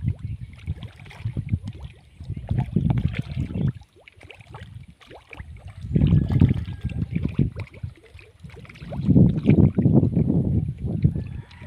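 Wind buffeting the microphone in gusts, a low rumble that swells and drops away four times, with light ticks from the water's surface.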